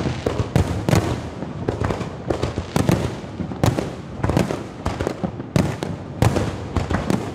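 Fireworks going off: a fast, irregular run of bangs, about two a second, with crackling in between.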